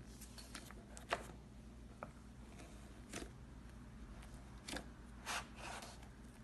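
Fingers poking and squishing thick slime, giving scattered sharp sticky clicks and crackles, the loudest about a second in and a quick run of them near the end.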